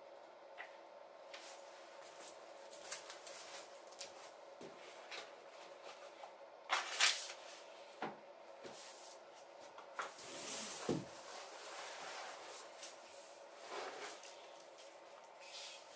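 Handling sounds: scattered light knocks and rustles, with a louder clack about seven seconds in and a longer rustle ending in a dull thump around ten to eleven seconds.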